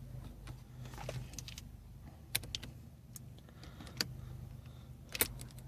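A few light metallic clicks and taps as a bolt and shifter parts are handled and fitted by hand, over a faint steady hum.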